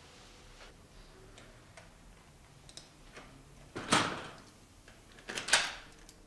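Faint scattered clicks and ticks, then two louder knocks, about four seconds in and again a second and a half later.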